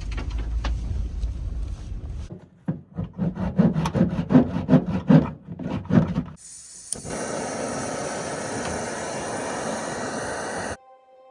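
Wind buffeting the microphone, then footsteps crunching through snow, about three steps a second. Then a steady rushing noise that cuts off suddenly near the end.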